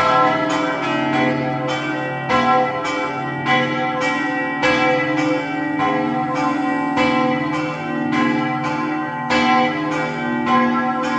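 Several church bells ringing together, their strikes overlapping in an uneven pattern about two a second, over the lasting deep hum of the larger bells.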